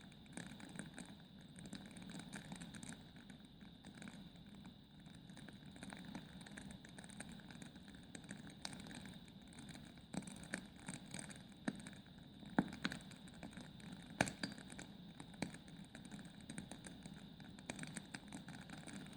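Wood logs burning in a fireplace, crackling: a low steady flame noise with irregular pops and snaps, two sharper pops about twelve and a half and fourteen seconds in.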